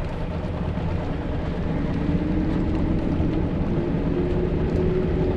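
An engine running with a steady low hum. A fainter tone above it rises a little about two seconds in and then holds.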